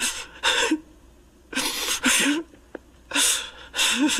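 A young man sobbing hard: gasping, choked breaths and cries coming in pairs, about three pairs in the span.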